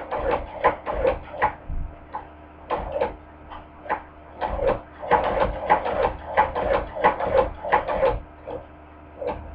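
Hand-crank cobbler sewing machine stitching: quick, even mechanical clacks at about four a second as the crank turns the needle through each stitch, in short runs with brief pauses. It stops a little before the end, with one last clack.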